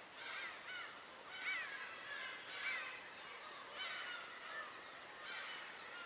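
Several birds calling over one another: harsh calls that rise and fall in pitch, coming in bursts about once a second.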